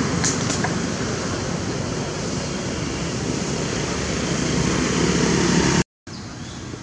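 Steady, loud rushing background noise with no single clear source, broken by two faint clicks within the first second. It drops out completely for a moment near the end.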